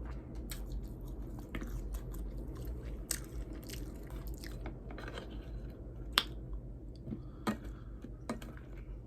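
Close-miked chewing and biting of hot chicken wings, with scattered sharp wet clicks and smacks; the loudest click comes about six seconds in.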